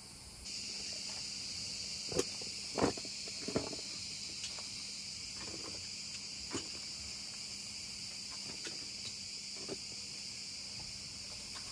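Steady high-pitched insect chorus, with a few scattered knocks and clatters of gear being handled, the loudest about two to three seconds in.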